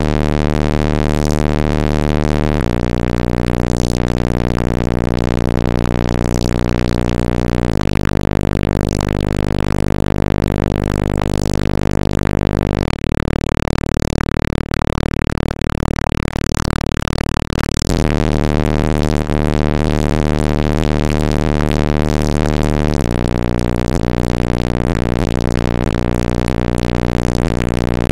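Bass-heavy music played very loud through a car audio system of three 18-inch Crossfire XS V2 subwoofers on an American Bass 1100.1 amplifier. Deep held bass notes shift pitch every few seconds, with harsh distortion over them.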